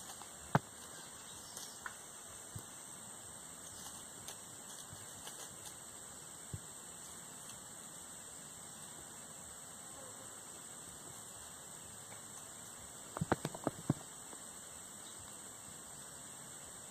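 Steady high-pitched drone of insects, with a few sharp clicks and crackles and a quick run of about six clicks a little past the middle.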